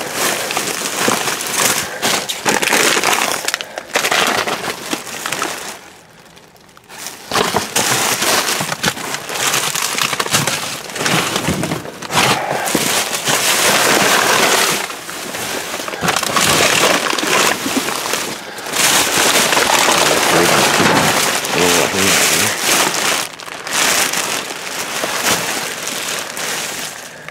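Plastic trash bags and food packaging rustling and crinkling in rough bursts as trash in a dumpster is dug through by hand, with a brief lull about six seconds in.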